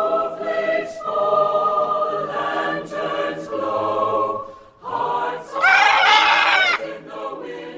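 A choir singing a Christmas carol in long held notes. About five and a half seconds in, a louder, shrill wavering voice cuts across the singing for about a second, and then the choir carries on more softly.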